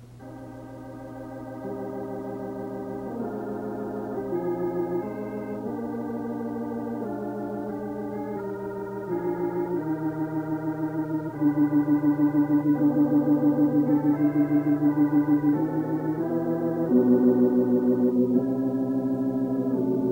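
Slow organ music accompanying the film: sustained chords changing every second or two over a steady low note, with a wavering tremolo, growing louder through the passage.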